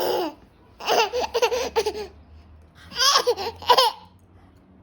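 Baby laughing in three high-pitched bursts, the middle one choppy.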